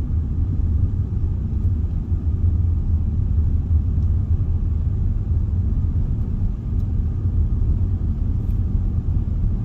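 Steady low rumble of a car driving along a country road, heard from inside the cabin: engine and tyre noise.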